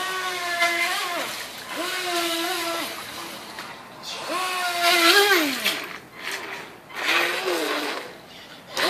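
Electric motor of a Hobbyking Serpent 2 Mini V-Hull RC racing boat whining in short bursts of about a second, four times, each ending with a quick fall in pitch, with a hiss of water spray.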